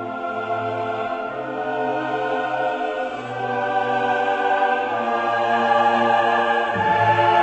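Slow background music of long sustained chords, growing louder in the second half.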